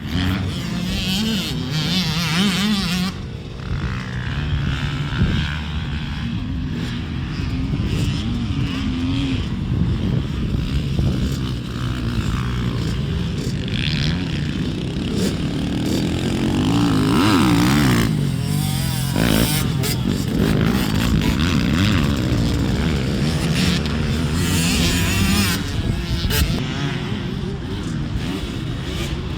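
Motocross motorcycle engine running and revving, its pitch rising and falling repeatedly, with one strong rev and drop just past the middle.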